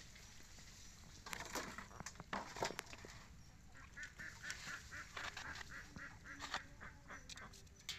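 Waterfowl calling in two bouts of honk-like calls, the second a quick rhythmic run. Sharp clicks and taps of a plastic soda bottle being handled are heard between the calls.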